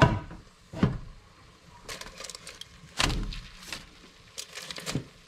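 Clunks of a Ninja air fryer's plastic basket and rustling aluminium foil as foil-wrapped parcels are handled in and out of it: a sharp knock at the start, another just under a second in, then scattered lighter knocks and crinkles.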